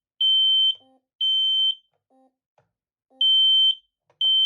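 Kidde P4010ACLEDSCOCA smoke and CO alarm sounding its smoke alarm: loud, high-pitched beeps of about half a second each, in the three-beep smoke pattern. Two beeps end one group, and after a pause of about a second and a half the next group starts with two more. The unit is in smoke alarm and, as it announces, cannot be hushed.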